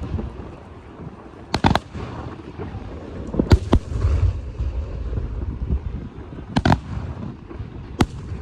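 Aerial firework shells bursting overhead: several sharp bangs, some in quick pairs, over a continuous low rumble of more distant bursts and echo.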